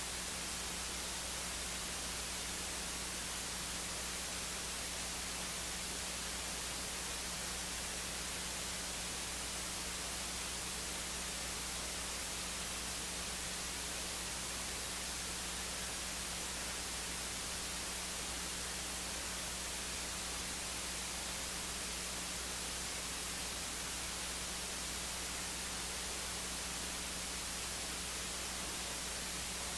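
Steady electronic hiss with a low hum underneath, unchanging, with no other sound.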